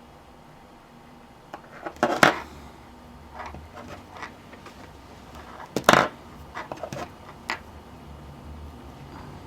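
Wire cutters snipping the two leads of a replacement laptop power jack to length, two sharp snips about 2 and 6 seconds in, with lighter clicks of the tool and wires being handled between them.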